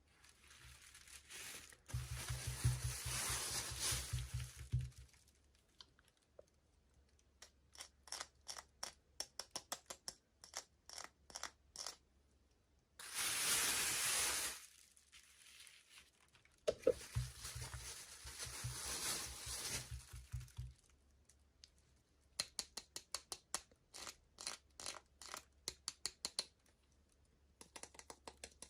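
Toy packaging being opened by hand: three bursts of tearing and crinkling plastic or paper, the longest lasting about three seconds, with runs of quick sharp clicks between them.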